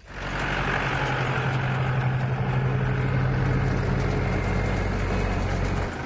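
An engine running steadily at an even pitch, cutting in abruptly; a low hum with a hiss above it.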